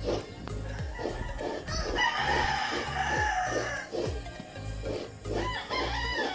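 A rooster crows one long call about two seconds in, over background music with a steady beat.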